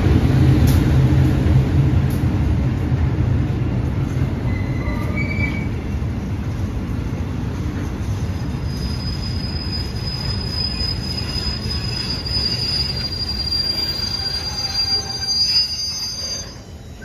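A State Railway of Thailand GEA-class diesel-electric locomotive passes with its engine running, then a string of tank wagons rolls by with steady wheel-on-rail noise. About halfway through, a high steady squeal from the wheels and brakes sets in as the train slows to stop, and the noise drops away near the end.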